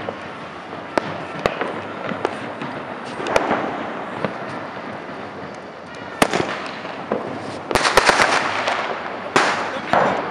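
Firecrackers and fireworks going off: scattered sharp bangs, with a dense cluster of rapid crackling pops about eight seconds in and another loud bang just after.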